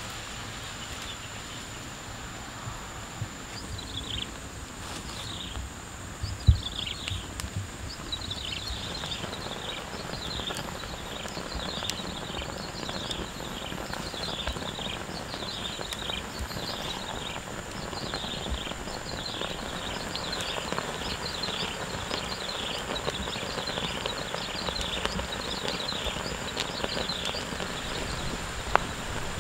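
A wok of curry sizzling over a crackling wood fire, with one sharp knock about six seconds in. A bird calls over it in short falling notes, about two a second, from a few seconds in, above a steady high tone.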